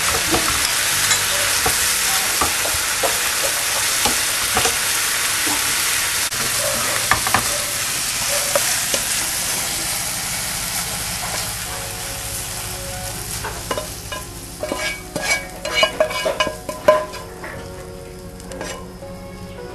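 Baby clams and basil stir-frying in a hot pan: a steady sizzle with the scrape and knock of a spatula being stirred through. The sizzle dies down over the second half, leaving sharper clinks and clicks, and faint music comes in near the end.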